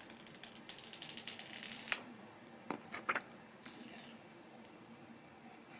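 Thin clear plastic protective film being peeled off a phone: faint crinkling and crackling for the first two seconds, then a few separate light clicks.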